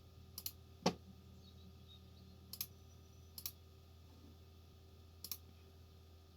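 Computer mouse clicking: about five separate clicks spaced a second or two apart, most of them a quick double tick of press and release. A faint steady low hum lies under them.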